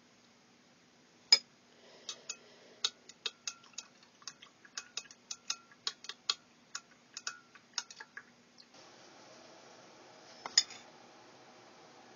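A metal spoon clinking against a glass jar as Epsom salt is spooned into hot water and stirred: one sharp clink, then a run of light ringing clinks at about three a second, and one more sharp clink near the end.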